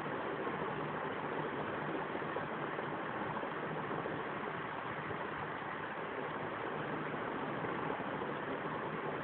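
Steady background noise, an even hiss or rush with a faint low hum underneath, unchanging throughout.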